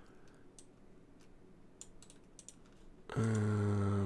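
Faint computer keyboard and mouse clicks. About three seconds in, a steady low-pitched hum starts suddenly and holds for about a second; it is the loudest sound.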